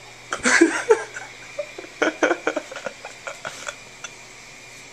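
Hushed laughter: a short burst of laughing, then a string of quick stifled snickers.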